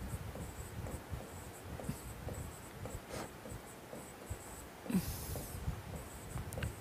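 Faint scratching and tapping of a pen writing on a board, with one louder scrape about five seconds in.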